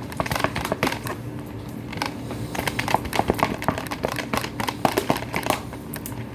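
Thick clear glue being stirred with a mixing tool in a bowl: irregular clicking, tapping and scraping strokes that keep going without a steady rhythm.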